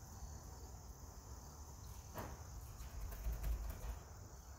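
Crickets trilling steadily in one high unbroken note, over a low rumble.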